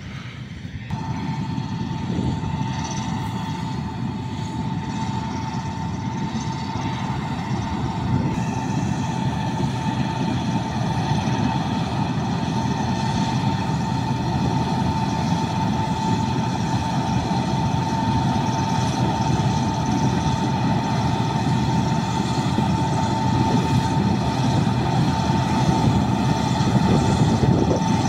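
Combine harvester working in the field: engine and threshing machinery running steadily with a constant whine, growing slowly louder as it approaches.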